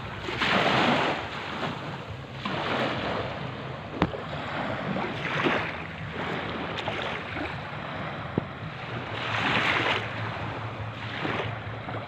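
Small sea waves washing onto a beach, surging and easing every few seconds.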